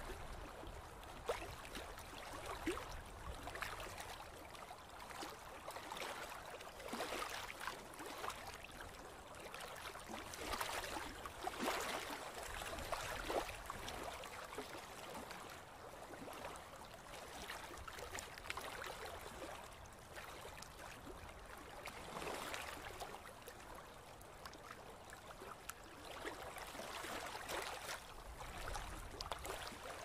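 Small waves lapping, a steady watery wash broken by many small, irregular splashes.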